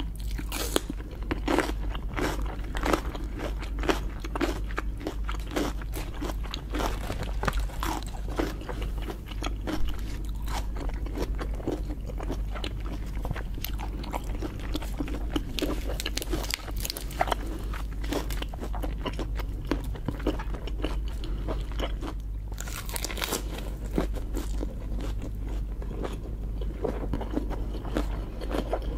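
Close-miked chewing and crunching of lobster, with dense, irregular crackly clicks throughout, over a steady low hum.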